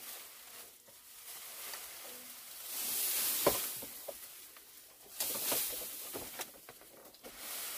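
Dry grass thatch rustling and crackling as it is handled on a wooden pole roof frame, in two spells about three seconds and five and a half seconds in, with a sharp knock about three and a half seconds in.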